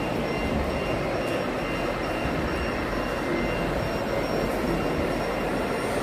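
Steady, even din of a busy exhibition hall, with faint high tones that come and go.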